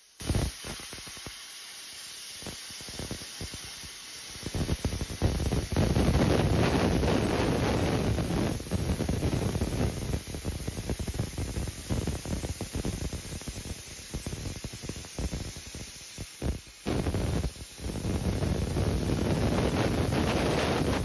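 Lidl 30-amp plasma cutter's arc striking suddenly on a CNC-moved torch, then running as an uneven hiss with the air blast as it cuts into 5 mm plate. The hiss drops away briefly twice near the end.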